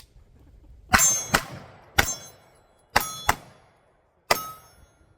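Pistol shots and hits on steel targets: six sharp cracks, some in quick pairs, each followed by the metallic ring of the struck steel plate.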